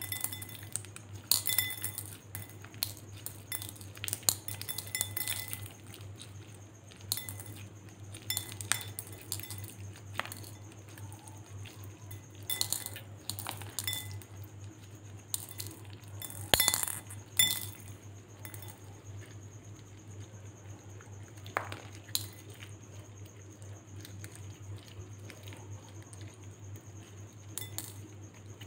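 Small beads clinking against a glass bowl and against each other as they are scooped and pressed together with slime by hand, in irregular clicks, some with a brief glassy ring. A steady low hum runs underneath.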